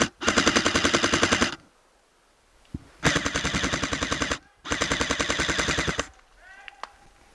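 Airsoft M4 rifle firing on full auto: three long bursts of rapid shots, each about a second and a half, with short pauses between.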